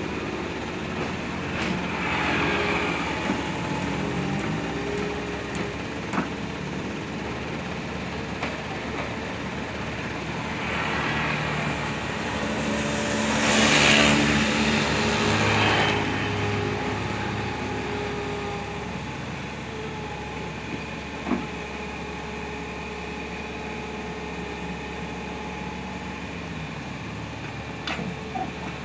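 Komatsu PC mini excavator's diesel engine running steadily under hydraulic work, with a few sharp knocks. About halfway through, a motor scooter passes close by, rising and fading, the loudest moment.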